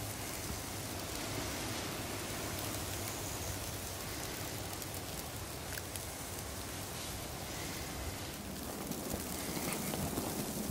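Steady hiss of falling snow.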